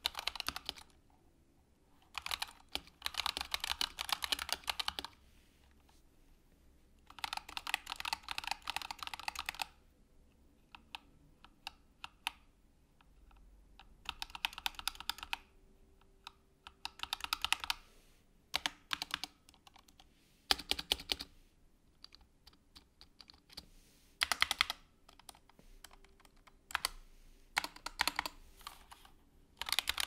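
Typing on a Razer Huntsman Tournament Edition with Razer linear optical switches on a bare aluminium plate. It comes in bursts of fast typing a few seconds long, with pauses between, then thins out to scattered single key presses and short flurries from one hand in the second half. The keys bottom out hard with a super loud, thin clack.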